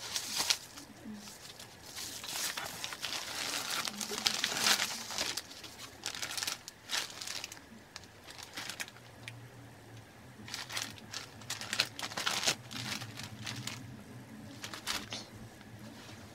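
Packaging crinkling and rustling in irregular spells as a padded paper mailer and a clear plastic zip bag are handled.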